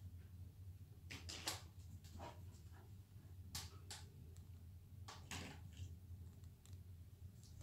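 Faint, scattered clicks and scuffs of a terrier's claws on a tiled floor as it noses and scrabbles along the base of a sofa, in small clusters, over a low steady hum.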